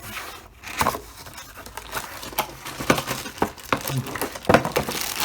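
Packaging being opened and rustled by hand as a part is unpacked from its box, with irregular crinkling and crackling.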